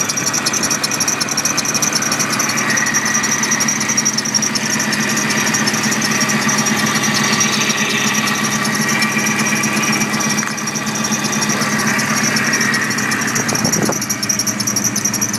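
Nissan Titan V8 with a newly installed Stillen supercharger running, its supercharger drive belt squealing: a high squeal that wavers in pitch over the steady engine note, the sign of the belt slipping on its pulleys after the install.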